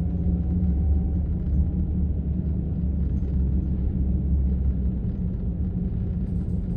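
Steady low road rumble and engine noise inside a moving car's cabin.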